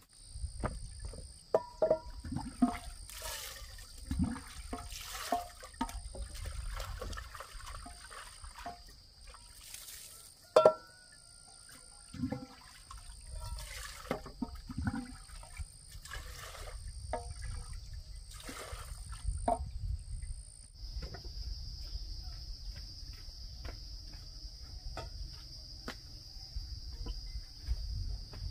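Water scooped with a bamboo dipper from a clay water jar and poured into a metal pot, with splashing and a few knocks and clatters of the pot and dipper, one sharp knock about ten seconds in. Insects buzz steadily throughout, with a pulsing chirp about once a second that stops about three quarters of the way through.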